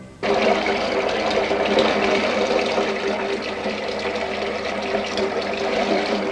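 Water running from a tap into a washbasin, with hands being rinsed under the stream. It starts suddenly about a quarter second in, runs steadily and stops near the end.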